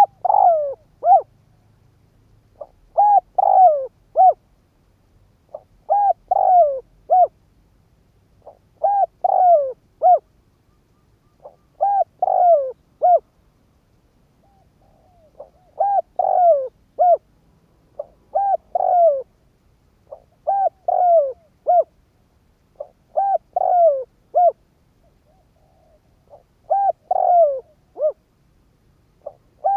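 Decoy spotted dove cooing: a phrase of a few soft notes ending in a short clipped note, repeated about every three seconds, ten times in all.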